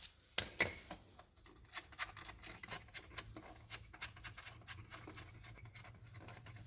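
Faint, irregular clicking and ticking of a socket wrench working a small bolt loose, with a few louder clicks about half a second in.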